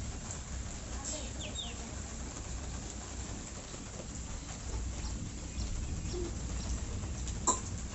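A couple of short, falling bird chirps about a second and a half in, over a steady outdoor background with low rumble, and a sharp click near the end.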